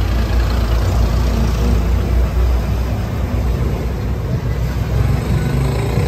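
A steady, loud low rumble of an engine running.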